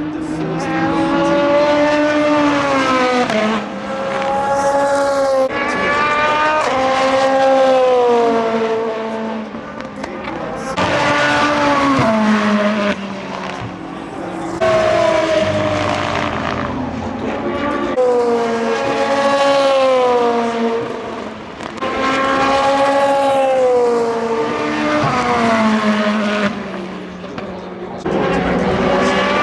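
A string of endurance race cars passing one after another at speed. Each engine note swells as the car approaches and drops in pitch as it goes by, with a new car arriving every few seconds.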